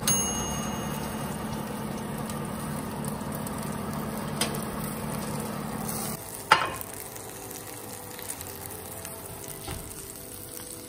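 Oven running with a steady hum while the baked stuffed tomatoes sizzle in a glass baking dish. About six seconds in, the hum stops and the glass dish knocks sharply as it is pulled out over the metal oven rack; softer sizzling follows.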